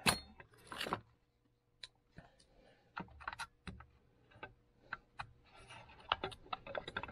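Light clicks and rattles of hand tools and the cut old starter rope being worked out of a snowmobile's aluminium recoil starter housing, with a louder click right at the start.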